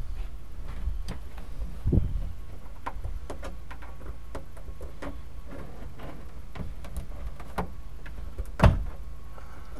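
Screwdriver working the old rubber back-window seal over the cab's plastic trim panel: a run of small clicks and creaks, with two louder knocks, one about two seconds in and one near the end. The sun-baked trim is brittle and wants to crack.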